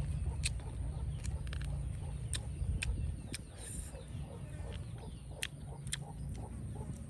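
Chickens clucking in the background, with scattered sharp clicks over a steady low rumble.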